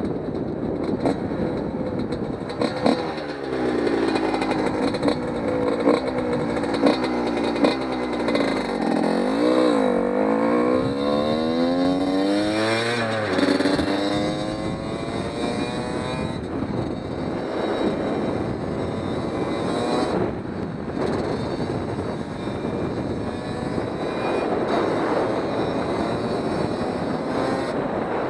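1997 Yamaha YZ125 two-stroke engine under way on the road, its pitch rising and falling several times through the first half as the throttle is worked and gears change, then holding steadier. The freshly rebuilt top end is still being broken in, so it is ridden gently rather than held at high revs.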